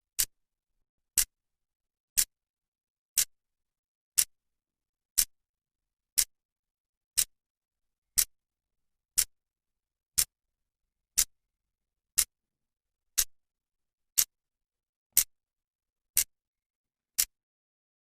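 Clock second hand ticking once a second, each tick a short, sharp click with silence between them.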